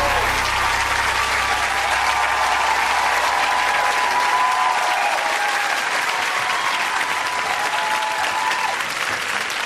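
A large studio audience applauding steadily, a dense, even clapping that holds at one level.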